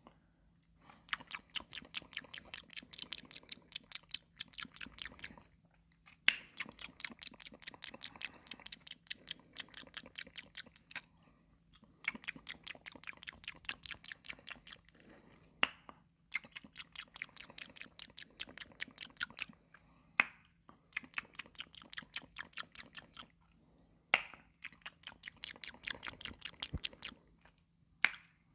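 Close-miked ASMR mouth sounds: rapid runs of small clicks, each run a few seconds long, broken by short pauses, with an occasional louder sharp click.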